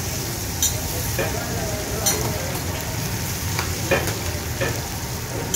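Fish deep-frying in a large wok of hot oil: a steady sizzle and bubbling, with several sharp clicks scattered through it.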